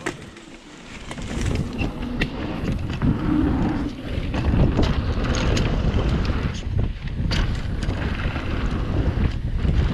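Mountain bike rolling down a dirt trail: wind buffeting the GoPro Hero 7's microphone over the rumble of the tyres, with the bike clattering and ticking over the bumps. It builds up over the first two seconds or so as the bike picks up speed.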